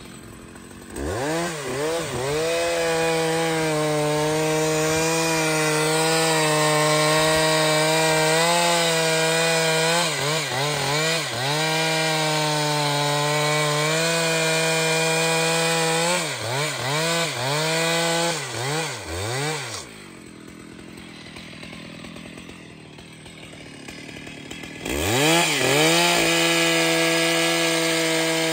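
Large two-stroke chainsaw cutting into a dense old trembesi trunk at full throttle, held steady under load with a few quick revs down and up. Past the middle it drops away for about five seconds, then revs back up into the cut.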